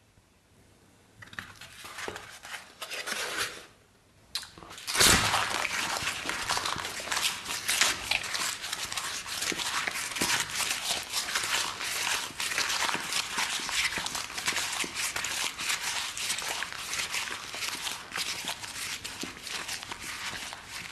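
Cardboard pizza box crackling and crunching: a few quieter rustles, then from about five seconds in a sharp loud crunch and a dense, continuous crackle of many small snaps.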